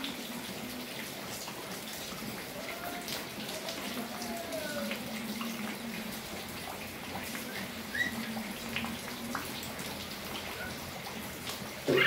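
Steady rain falling on a wet concrete courtyard, a constant patter and hiss, with a few faint short calls over it around the middle.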